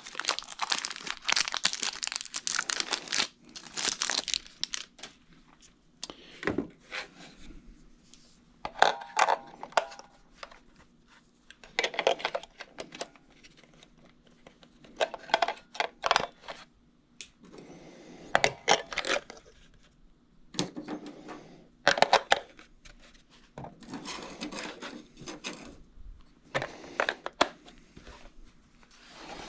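Crinkling of plastic packaging and scattered clicks and clatters of small hard plastic parts being handled, in irregular bursts, as AA batteries are loaded into an RC transmitter's battery compartment.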